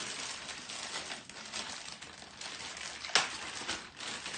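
Plastic packaging rustling as kitchen accessories are unwrapped and handled, with one sharp click about three seconds in.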